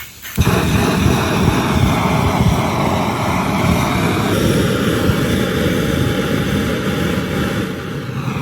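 A steady engine running, starting abruptly about half a second in, with its tone shifting slightly about halfway through.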